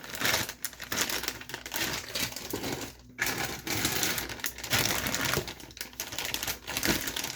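Plastic kit parts bags crinkling and rustling as they are handled, with small plastic parts clicking and rattling inside them, briefly pausing about three seconds in.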